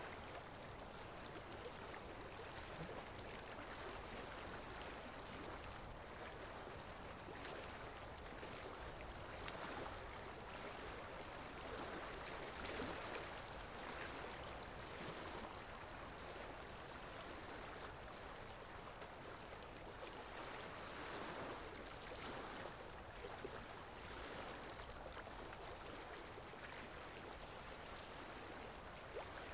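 Steady rush of flowing water, swelling and easing gently every few seconds.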